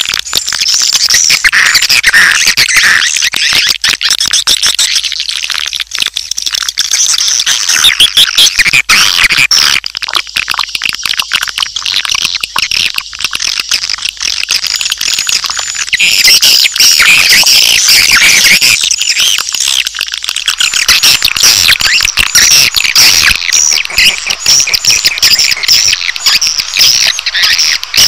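Recorded swiftlet calls from a 'suara inap' (roosting-call) lure track, the kind played in swiftlet nest houses to attract birds to roost: a loud, unbroken mass of high-pitched chirping and twittering from many birds, labelled as baby swiftlet calls.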